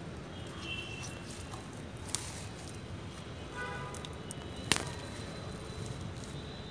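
Two sharp clicks, a small one about two seconds in and a louder one about four and a half seconds in, over a steady outdoor background hiss, with a few faint high chirps.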